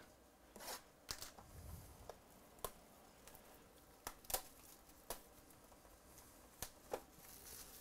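Faint handling of a sealed cardboard trading-card hobby box as its shrink wrap is opened: irregular light taps and clicks with soft plastic crinkling.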